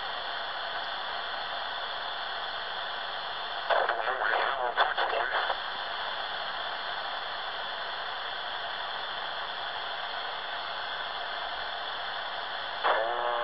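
Shortwave receiver's speaker giving a steady static hiss between transmissions on 14.215 MHz. About four seconds in, a short burst of garbled, distorted voice comes through, and another voice starts near the end; the distortion comes from receiving upper-sideband speech in FM mode.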